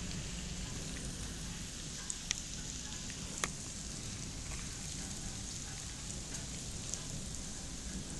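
Hailstorm: a steady hiss of hail and rain coming down, with a few sharp ticks of single hailstones striking, the loudest about three and a half seconds in.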